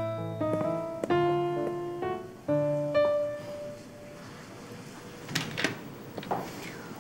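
Background piano music: a short, gentle melody of single notes that rings out and fades away about halfway through. It is followed by a few faint knocks.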